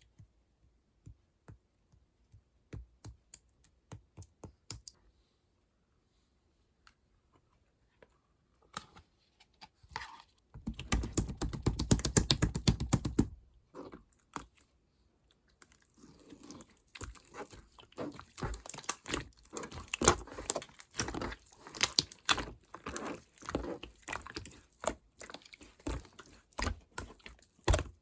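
Clear slime being handled and mixed with clay: a few soft clicks at first, a loud dense burst of noise lasting about three seconds midway, then steady crackling and popping as the slime is pressed and worked, air pockets snapping in it.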